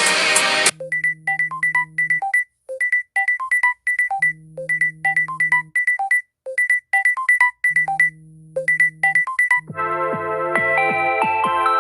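Samsung Galaxy S25 Ultra ringtones being previewed. A sparse melody of short, bright notes climbs to a repeated high note over a held low note, and the phrase repeats about every three and a half seconds. The tail of the previous, denser ringtone is heard just before, and a fuller ringtone starts near the end.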